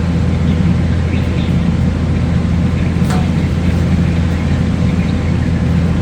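Steady low motor hum, even and unchanging, with a single light click about three seconds in.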